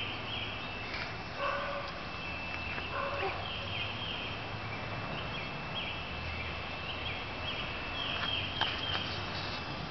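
Small birds chirping: short, high, falling chirps that repeat at irregular intervals over a steady thin high tone, with a couple of faint, short lower calls about one and three seconds in.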